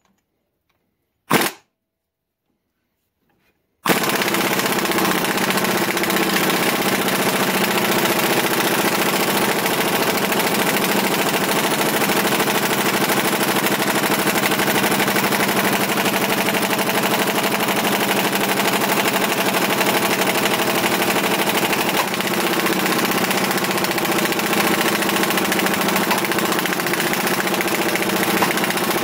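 Impact wrench hammering steadily as it drives the screw of a ball joint press on a Dana 60 steering knuckle. Silent at first with one brief sound about a second and a half in; the hammering starts about four seconds in and goes on without a break.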